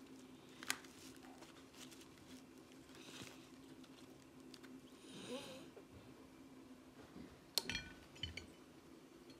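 Faint rustling and crunching of crushed almonds and peanuts as a chocolate-covered frozen banana on a stick is rolled in them, over a low steady hum. A sharp click about seven and a half seconds in, with a few small taps after it, as the banana is set down on a tray.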